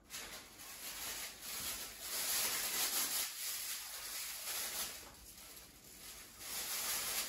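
Thin clear plastic disposable gloves rustling and crinkling as they are pulled onto the hands, with a quieter stretch a little past halfway.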